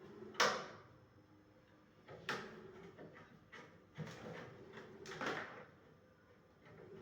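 Handling noises: a few sharp knocks and clunks of hard parts being moved about, the loudest about half a second in and the others about two, four and five seconds in.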